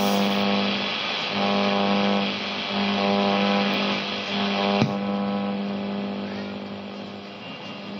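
National Ekco valve radio being tuned between stations: static hiss with a low, steady buzz that drops out and comes back every second or so. A sharp click comes about halfway through, after which the hiss falls off.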